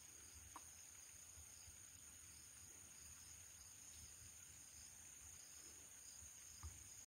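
Near silence with a faint, steady high-pitched insect chorus, and a soft tap about half a second in and another near the end.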